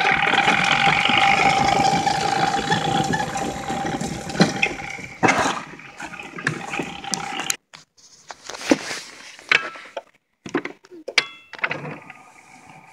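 Toylander ride-on car's electric drive motor and gearbox whining steadily under way, with tyre noise from rolling over grass. About halfway the whine drops away into scattered knocks and clicks, then builds again near the end.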